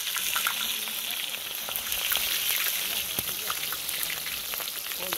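A large piece of beef rump steak deep-frying in hot oil in a talandara, a wide, shallow steel pan: a steady sizzle with frequent sharp crackles and pops.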